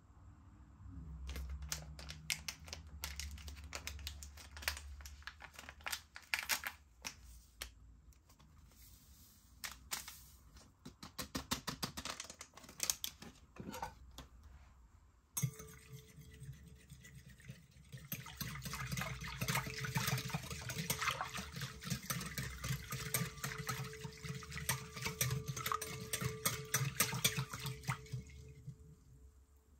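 Kitchen mixing sounds: irregular clinks and scrapes in a bowl, then from about halfway a small electric motor starts up with a steady hum and a fast, dense rattle of beaters against the bowl.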